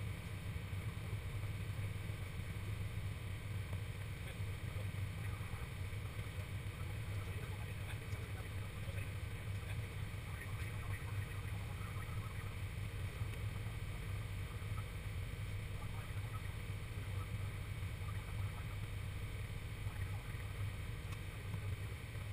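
Steady drone of engine and airflow noise inside an airliner's flight deck on approach, with a constant low hum underneath.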